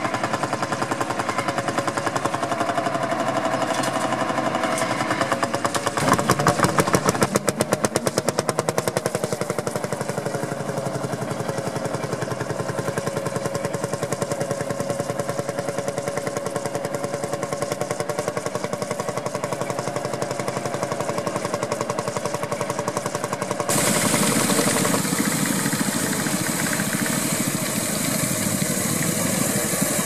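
Vintage tractor engines running under load while pulling ploughs, with a rapid, regular firing beat. The sound shifts abruptly about six seconds in and again after about twenty-four seconds.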